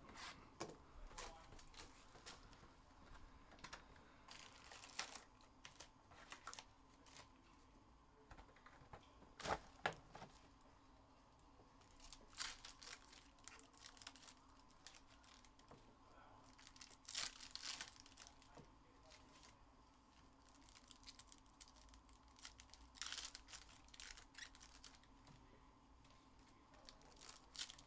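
Faint, scattered tearing and crinkling of trading-card pack wrappers and cards being handled, a few short rustles every few seconds over a low steady hum.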